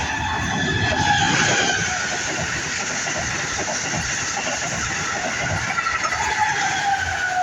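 Train passing, its wheels rumbling over the rails with a high, drawn-out squeal that slides slowly down in pitch.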